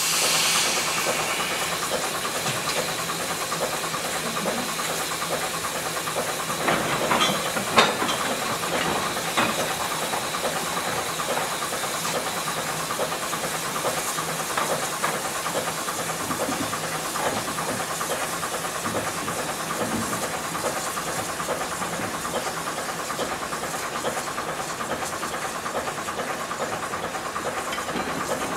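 Steam locomotive letting off a steady hiss of escaping steam as it moves a short goods train slowly along. A brief louder clatter comes about seven to eight seconds in.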